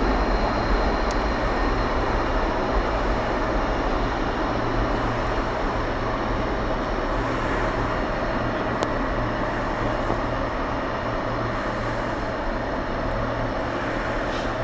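Distant jet engines of an Airbus A330-300 (Rolls-Royce Trent 700 turbofans) at takeoff thrust during liftoff, heard as a steady rushing rumble that slowly grows fainter.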